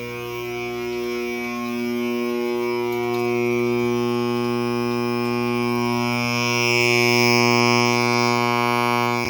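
Edwards Adaptahorn AC vibrating fire alarm horn sounding continuously, a steady low buzzing drone with no breaks. It grows louder for a couple of seconds past the middle.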